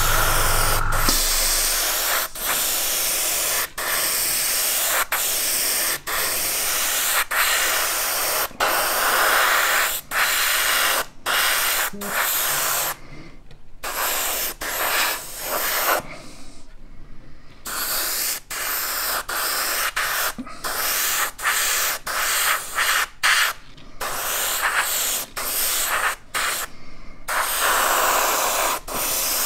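Gravity-feed airbrush spraying off-white paint: a steady hiss of air and paint, cut by many short stops as the trigger is let off and pressed again, with longer breaks a little over halfway through. A steady low hum stops about a second in.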